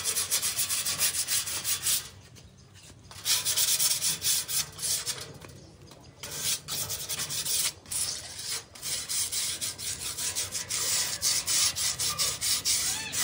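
Rusty painted iron signboard being rubbed down by hand with rapid back-and-forth scraping strokes, in several bouts broken by short pauses about two and six seconds in.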